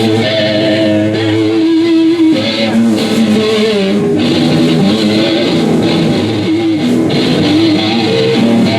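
Electric guitar playing loose, held notes and chords over a bass guitar in an unrehearsed jam, loud and steady throughout.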